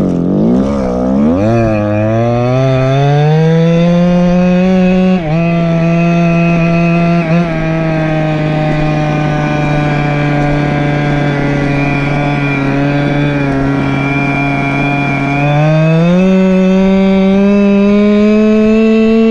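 Go-Ped scooter's small two-stroke engine pulling away: its pitch climbs over the first few seconds, then it holds a steady high-revving cruise with two brief dips, and it revs higher again about three-quarters of the way through.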